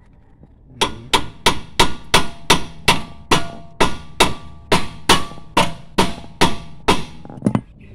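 A hammer striking the metal of a car's front wheel hub and steering knuckle. There are about twenty steady blows, roughly three a second, each with a short metallic ring.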